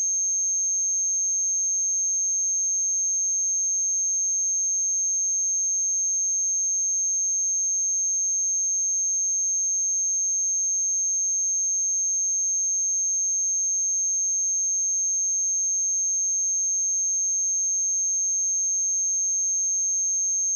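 A steady, unbroken pure sine-wave test tone at 6394 Hz, a high-pitched whistle-like tone held at constant pitch and level.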